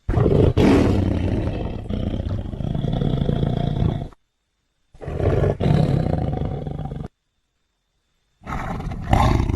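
Smilodon (sabre-toothed cat) creature roar sound effects: three separate deep, rasping roars, the first about four seconds long, the second about two seconds, the third starting near the end, each cut off abruptly with a short gap of silence between.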